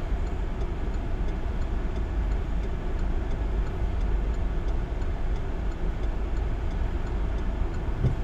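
Inside a stationary car's cabin: the engine idles with a steady low rumble while the turn indicator ticks evenly.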